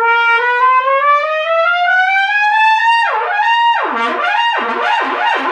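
Harrelson VPS Summit One trumpet played with one long smooth upward slide of about an octave over roughly three seconds, then several fast swoops down to the low range and back up to the high note. The horn slides very easily between partials: the flexibility given by a number 6 insert, a small venturi gap.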